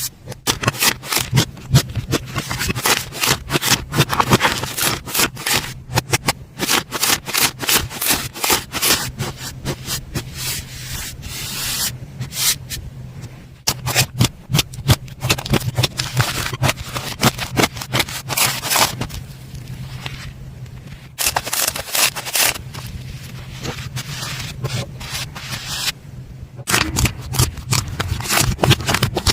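Slime being squeezed and worked by hand, a dense run of sticky clicks and crackles that pauses briefly a few times.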